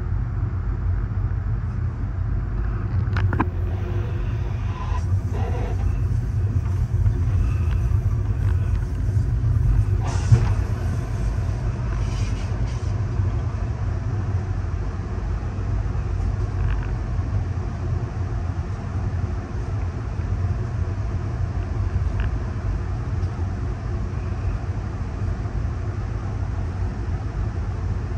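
Amtrak Superliner passenger car rolling along the track, heard from on board: a steady low rumble of wheels on rail, with a few brief knocks, the sharpest about ten seconds in.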